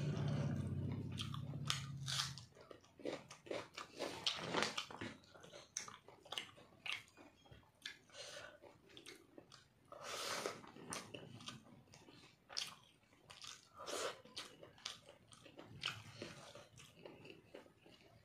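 Close-miked chewing of a handful of chicken curry and rice eaten with the fingers: irregular wet smacking and mouth clicks, with a low hum in the first couple of seconds and a louder wet burst about halfway through.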